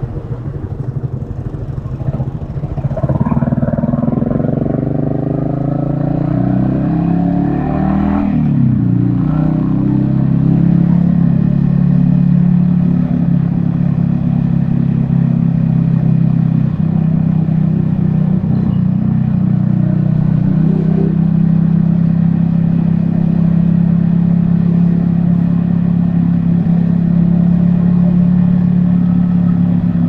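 Yamaha XSR155's single-cylinder engine pulling away from low speed, its note climbing for several seconds, dropping briefly about eight seconds in, then running at a steady cruise.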